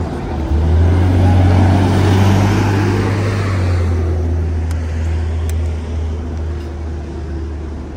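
Bus's engine rumbling close by as it pulls away and passes, loudest over the first four seconds, then fading to a lower steady street-traffic drone.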